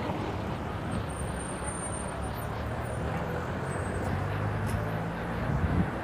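Steady street noise: a low rumble of traffic, with an engine's hum growing stronger in the second half.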